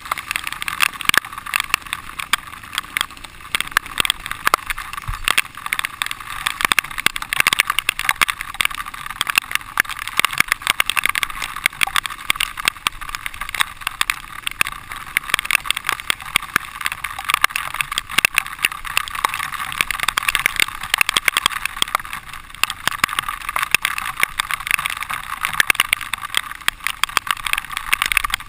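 Dirt bike riding a muddy trail, its engine running steadily under a dense, continuous crackle of rapid clicks and rattles.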